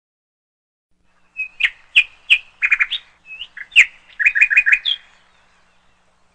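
A bird chirping: a string of sharp chirps, short quick trills and little upward glides, starting about a second and a half in and stopping about five seconds in.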